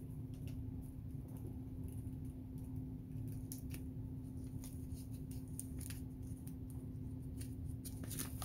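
Heat tape and a paper sublimation transfer being peeled and handled on a fleece blanket: scattered small crinkles and ticks over a steady low hum.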